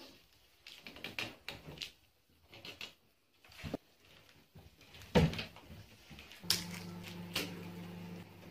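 Wooden sticks knocking and rubbing together while string is wound and tied around their tops to lash a teepee frame: irregular clicks and knocks, the loudest about five seconds in. A steady low hum comes in about six and a half seconds in.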